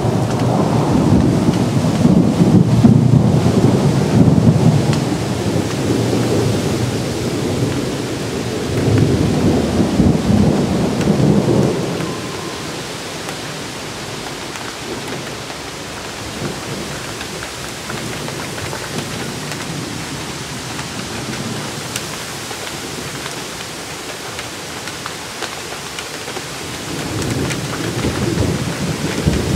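Thunder rolling over steady rain: a long low rumble that swells and then fades about twelve seconds in, leaving the hiss of the rain, and a fresh rumble building near the end.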